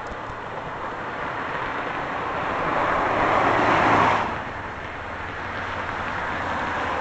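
A motor vehicle going by: its road noise swells to a peak about four seconds in and then drops away, with a faint engine hum underneath.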